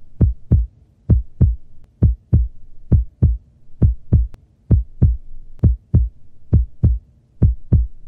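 Heartbeat sound effect: pairs of low thumps (lub-dub) repeating steadily, a little under once a second.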